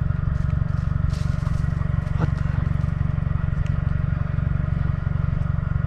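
Steady low rumble with a few faint clicks, one a little sharper about two seconds in.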